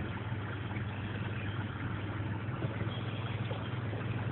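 Vehicle driving slowly through shallow floodwater, heard from inside the cab: a steady low engine hum with an even wash of water and tyre noise.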